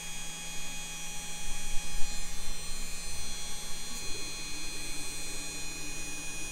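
Genmitsu 4040 Reno CNC router spindle running with a steady, not very loud electric whine and hum while its V-bit carves into a wood block.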